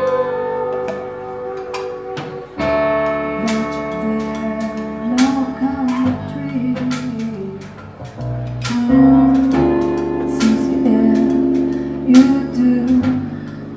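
Live ensemble music played on instruments made from decommissioned guns: sharp plucked and struck notes over sustained lower tones that waver in pitch.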